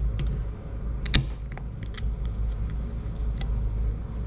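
Clicks and knocks from handling a beer before drinking it, one sharp click about a second in and a few lighter ones after, over a steady low hum.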